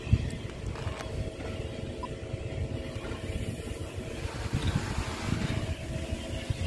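Low rumble of a train running into the station, with a steady hum over it.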